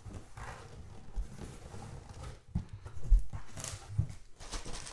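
Cardboard shipping box being handled and opened by hand: scattered knocks and thumps as the carton and its flaps are moved, the loudest a little past three seconds in, with a brief rustle of packaging about three and a half seconds in.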